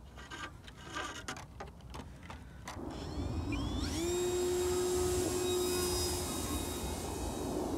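Brushless 2212 1400kv electric motor and folding propeller of a small RC plane spooling up with a rising whine to full throttle at hand-launch, then holding a steady high whine as the plane climbs out. The whine eases off near the end. Handling clicks and wind noise come before it.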